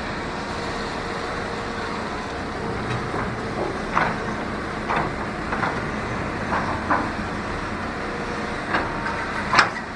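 Diesel heavy demolition machinery running steadily, with scattered sharp knocks and clanks starting a few seconds in.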